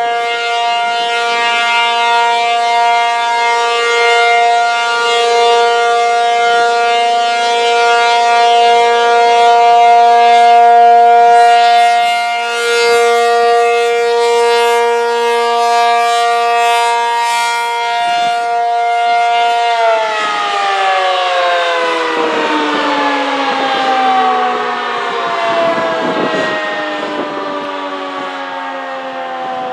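ACA P-50 outdoor warning siren sounding a steady Alert tone, several tones held at once. About twenty seconds in, the siren is switched off and winds down, its pitch falling steadily as the rotor slows, at the end of a three-minute test cycle.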